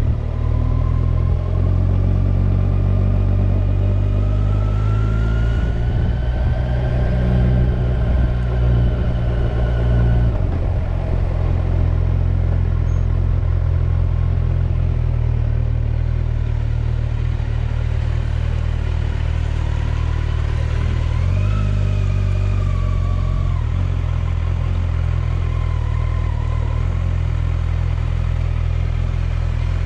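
Kawasaki Ninja 1000SX's inline-four engine running while under way. Its pitch climbs over the first eight seconds or so, drops sharply about ten seconds in, and rises and falls again a little past the twenty-second mark.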